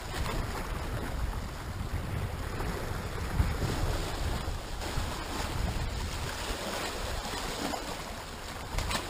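Sea swell washing and breaking over rocks just below, with wind buffeting the microphone.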